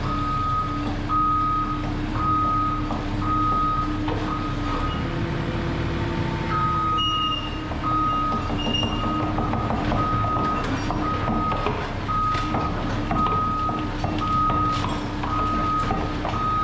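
Caterpillar 308D mini excavator's diesel engine running steadily while its travel alarm beeps about once a second, with a pause of a second or so near the middle; scattered metal clanks come from the steel track and chain as the sprocket pulls the new track on.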